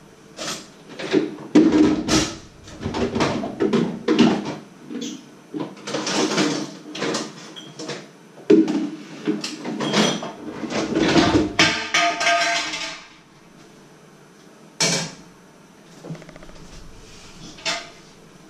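Dishes, metal bowls and pots clattering and knocking as they are set and stacked in a kitchen sink: a long run of irregular clatter, then a couple of single knocks near the end.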